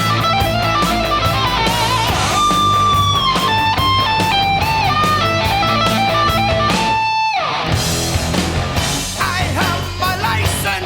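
Rock music with a lead electric guitar playing held, wavering notes over bass and drums. About seven seconds in, a falling sweep runs down into a short break.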